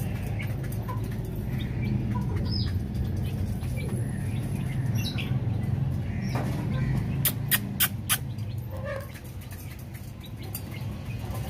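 Aseel chicks cheeping in short, scattered calls over a steady low hum, with a quick run of sharp clicks a little past the middle.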